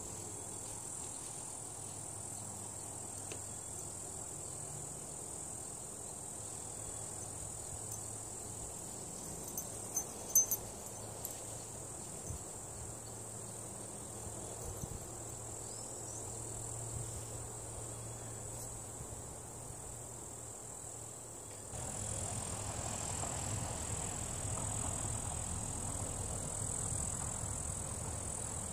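Steady, high-pitched insect chorus of crickets in the grass, with a few sharp clicks about ten seconds in; near the end the lower background grows louder.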